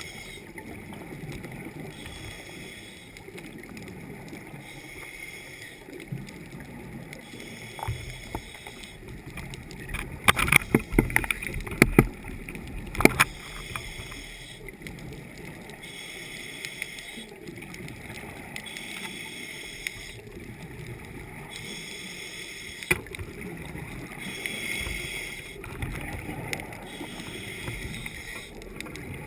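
Underwater noise heard through an action camera's housing: a steady, muffled rush. A cluster of sharp clicks and knocks comes about ten to thirteen seconds in, with single ones near eight and twenty-three seconds.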